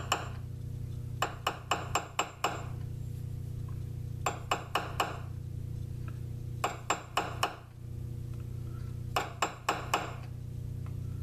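A metal bar rapping a workpiece held in a South Bend lathe's spindle to knock out its runout. Sharp metallic taps with a short ping come in quick bursts of three to five, a new burst every two to three seconds, over a steady low hum.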